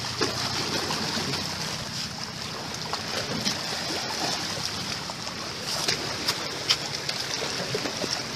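Small waves washing against shoreline rocks, a steady rushing hiss, with a few short scuffs and knocks scattered through it.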